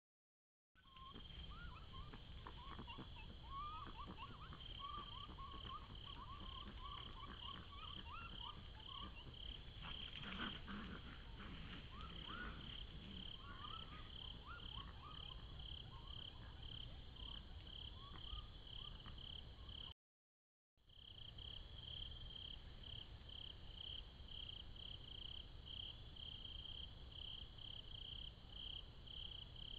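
Night-time insect chorus: a faint, high cricket-like chirping that pulses about two to three times a second, with a scatter of lower squeaky chirps through the first half and a brief rustle about ten seconds in. The sound cuts out for a moment at the very start and again about twenty seconds in.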